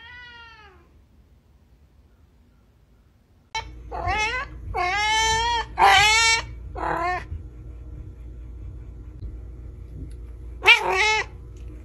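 Cats meowing: one falling meow at the start, then after a pause a run of four or five loud meows in quick succession, and two more near the end.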